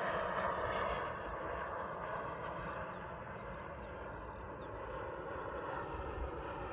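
JetCat P250-Pro-S model jet turbine running: a steady rushing noise with a whine through it, a little louder in the first second.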